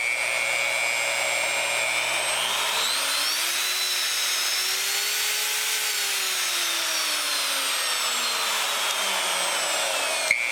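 Bosch electric router motor running with a steady whine, running again after its corroded switch contacts were cleaned. The pitch climbs over the first few seconds and then falls away as the variable-speed dial is turned up and back down. A short click comes near the end.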